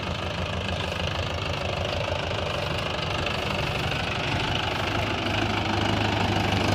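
Mahindra 585 DI Sarpanch tractor's diesel engine running steadily, growing a little louder near the end.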